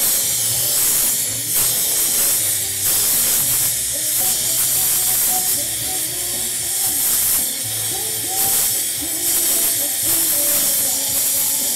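Lampworking torch flame hissing steadily as it heats the glass, with music playing underneath.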